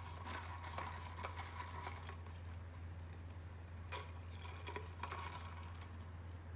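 Plastic straw rubbing up and down through the hole in a plastic cup lid, squeaking with light clicks. It does this in two spells: over the first two seconds, and again from about four seconds in.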